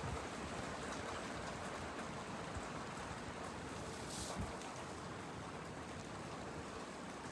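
Steady hiss of wind and rain at night, with a brief higher hiss about four seconds in.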